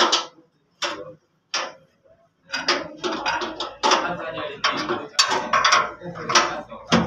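Speech in short bursts, untranscribed, with a near-silent pause about a second in, then steady talking with some light clatter.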